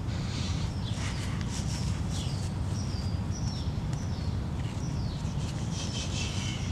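Small birds chirping in short, falling notes, several times, over a steady low background rumble.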